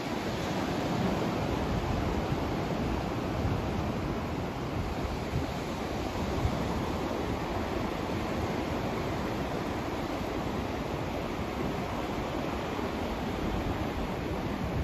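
Steady white-noise sleep track: an even rushing hiss, fuller in the low end, with slight swells and no breaks.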